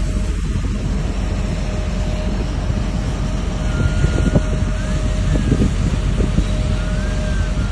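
Wind buffeting the microphone over a steady low rumble of ship machinery, with a thin steady hum throughout.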